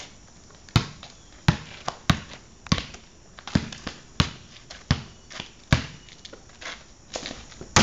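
Basketball being dribbled on pavement: a steady run of sharp bounces, about ten of them, one every two-thirds of a second or so.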